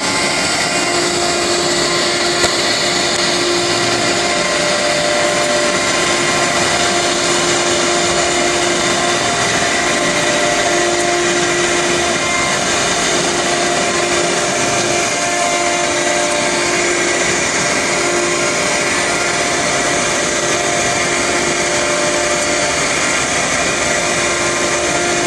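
CNC router running, its spindle giving a steady whine over continuous, even machining noise.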